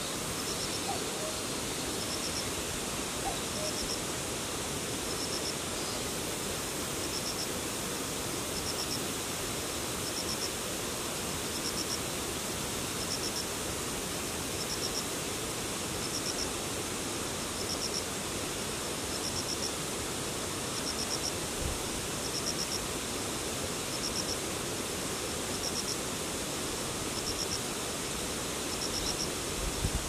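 A grass insect chirping in short pulsed trills of three or four quick notes, repeated every second or two, over a steady, even hiss.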